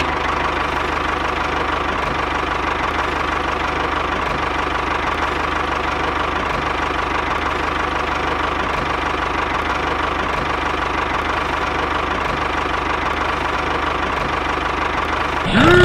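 Tractor engine running steadily at an even pace, with no change in speed.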